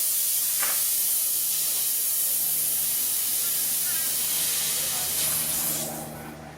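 Steady hiss of compressed air, fading out about six seconds in.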